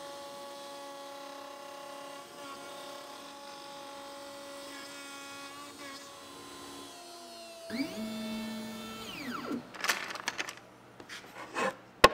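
X-Carve CNC router's spindle, a DeWalt 611 trim router, running steadily with a whine while it mills plywood. About seven seconds in, a falling tone suggests it spinning down. A few sharp knocks follow near the end as the machined plywood piece is handled.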